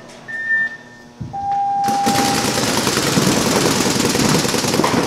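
A short high countdown beep, then a longer, lower start tone, marking the start of the point. About two seconds in, several paintball markers open up in a dense, rapid, continuous rattle of shots as the players break out.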